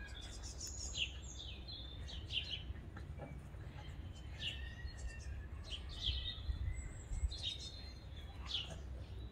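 Garden birds chirping and calling repeatedly in short high notes, over a steady low rumble.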